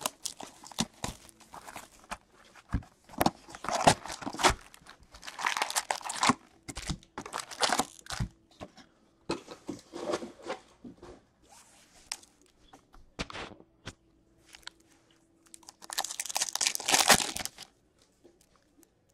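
Wrapping and foil packs of a retail box of hockey cards being torn open and crinkled by hand, in irregular bursts of rustling with pauses and a few light clicks between.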